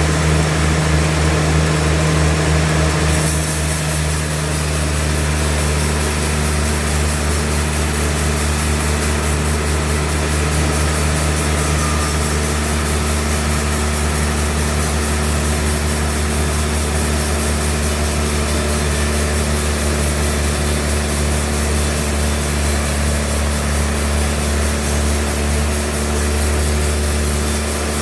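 Sawmill running steadily with its engine humming while the saw cuts through a large log; a higher hiss joins about three seconds in.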